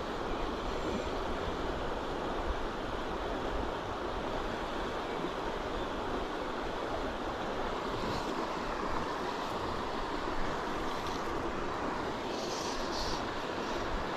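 Steady rush of flowing river water, with a low wind rumble on the microphone and a few faint high ticks near the end.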